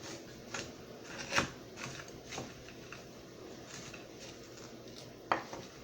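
Scattered, irregular clicks and knocks as partly frozen sliced strawberries, banana and blueberries are broken up in a square baking dish. There is a sharper knock about a second and a half in and another near the end.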